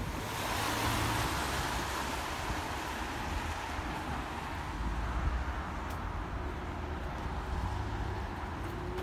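Road traffic: a car passes close by, its noise swelling in the first second or two and then slowly fading, over a steady low rumble of traffic.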